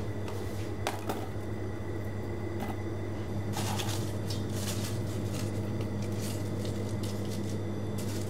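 Dried bay leaves rustling and crackling in short bursts as a hand rummages through them in a plastic tub, with a few light clicks. A steady low hum runs underneath.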